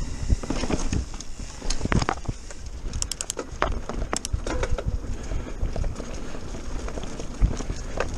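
Mountain bike rattling over a rough, leaf-strewn dirt trail at speed: tyres rolling through dry leaves, with many sharp knocks and clatters from the bike over roots and bumps over a steady low rumble.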